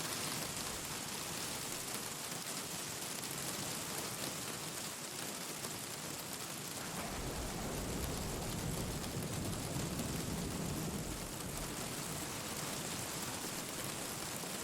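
Steady rain falling, an even hiss. About halfway through, a low rumble comes in underneath and continues.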